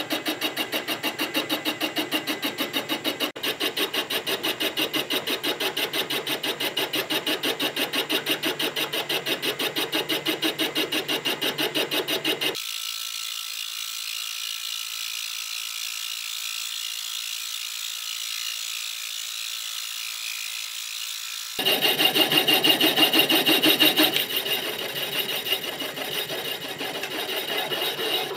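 Knee mill running a boring bar that cuts a steel journal on a cement mixer yoke at slow feed, a steady machining sound with a fast, even pulse each turn of the spindle. The sound thins out about twelve seconds in and comes back louder about three-quarters through.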